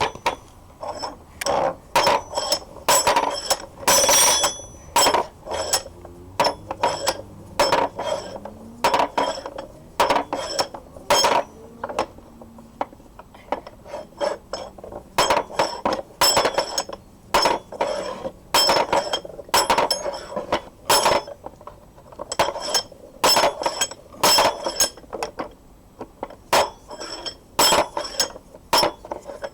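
Metal-on-metal clinks and knocks, each with a short ring, in irregular clusters of a few per second, as the old wrought iron vise's steel parts are taken apart.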